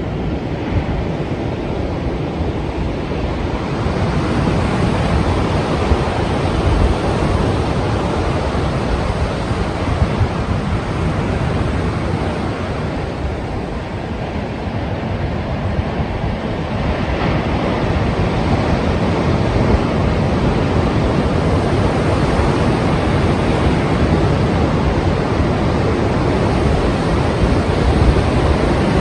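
Strong sea waves breaking and surging onto the shore in a continuous deep rush, swelling and easing slowly, with wind buffeting the microphone.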